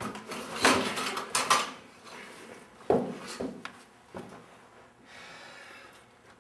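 A short scuffle around a metal-framed classroom chair: a seated person is shoved off it and someone else takes the seat. There is a burst of clattering knocks and shuffling, then a sharp knock about three seconds in and a few lighter bumps.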